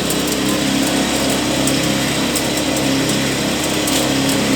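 Small engine running steadily at an even speed, with a low, constant hum.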